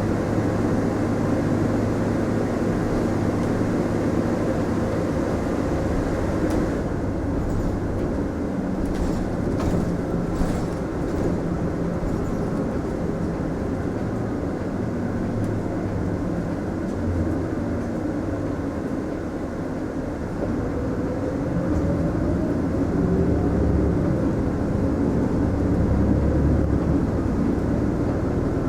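Running noise inside a Mitsubishi Fuso Aerostar diesel city bus: a steady engine hum with road and tyre noise. The engine note eases off about two-thirds of the way through, then rises again as the bus accelerates.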